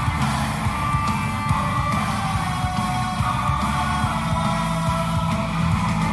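Rock goal song with distorted electric guitar, heavy drums and shouted vocals.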